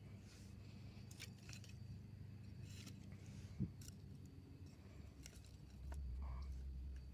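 Faint rustling and light clicks of braided nylon rope and dry wooden sticks being handled and shifted during a lashing, with one dull thump about three and a half seconds in. A low rumble sets in near the end.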